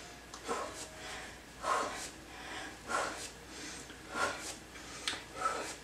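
A woman's short, breathy exertion sounds, five in a row about a second and a quarter apart, one with each hip raise of a side plank.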